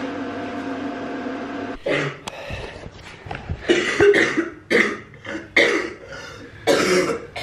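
A steady hum cuts off about two seconds in, and then a woman coughs in a run of short, loud coughs.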